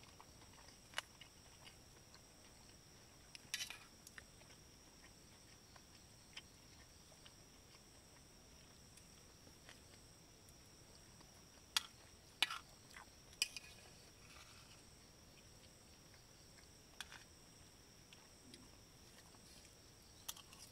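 Faint steady high-pitched chirring of night insects, with scattered sharp clicks of cutlery against a plate as someone eats.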